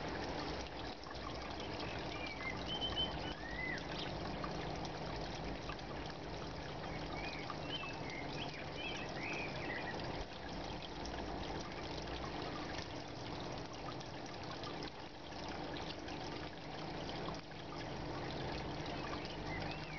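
Water trickling and pouring into an aquaponics fish tank, a steady splashing flow over a low constant hum. A few short high chirps come through about 3 seconds in, around 8 to 9 seconds, and near the end.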